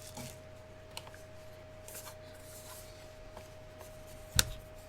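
Faint rustling and handling of objects on a tabletop, with a light tick about a second in and a sharp knock near the end, the loudest sound.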